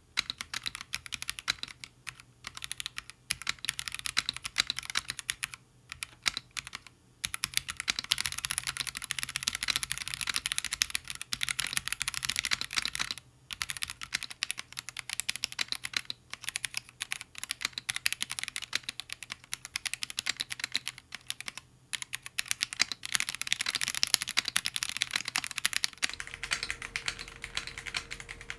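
Typing on a GamaKay K61 Pro 61-key gasket-mount mechanical keyboard with Gateron Yellow linear switches: fast runs of key clacks in bursts, broken by short pauses. Near the end a faint steady hum comes in as the recording changes microphone.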